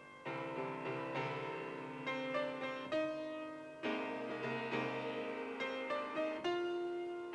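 Piano playing slow, gentle chords with a simple melody, each chord struck and left to ring before the next.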